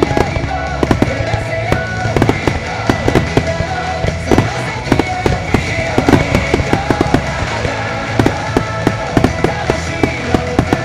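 Starmine barrage of aerial firework shells bursting in rapid, irregular succession, dozens of sharp bangs over the seconds, over music played through loudspeakers.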